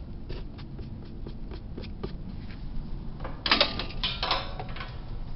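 Sheet-metal and plastic parts of a dryer's front panel being handled: a run of small clicks and taps, then a louder burst of clattering about three and a half seconds in.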